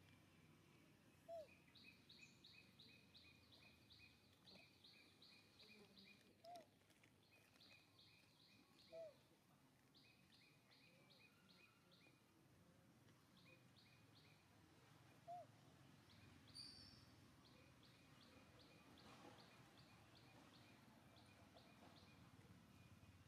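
Faint outdoor ambience with an animal chirping in quick runs of about five notes a second, each run lasting a few seconds, and a few short, louder squeaks scattered through it.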